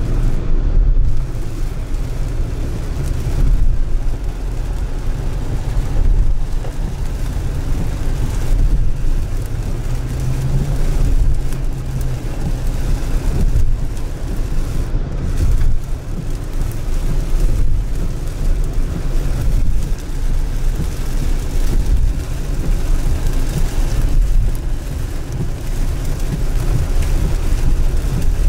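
Car driving on a wet road in the rain: a steady, loud low rumble of road and engine noise with a hiss of rain and wet tyres over it.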